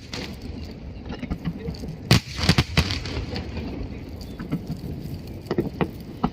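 Aerial fireworks going off: two loud bangs about two seconds in, half a second apart, followed by crackling, then a few smaller pops near the end.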